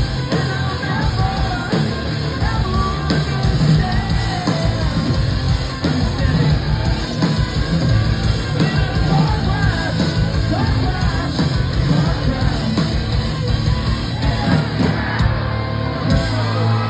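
Post-hardcore band playing live and loud: distorted electric guitars, bass and drums, with sung and yelled vocals. About a second before the end the drumming stops and a low chord is left ringing.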